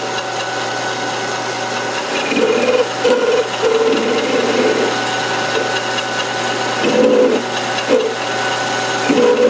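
Metal lathe running with a steady motor hum while a hand-swung ball-turning attachment feeds a carbide insert into the spinning workpiece to turn a sphere. The cut comes and goes in uneven scraping bursts from about two seconds in.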